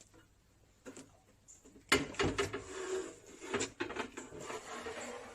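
A sharp knock about two seconds in, followed by irregular clicks and clattering of things being handled.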